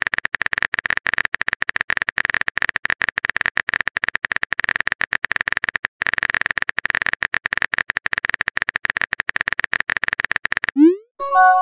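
Rapid run of keyboard-typing clicks, a text-message sound effect, with a short break about halfway. Near the end a quick rising pop and a short chime of several tones sound together: a new-message notification.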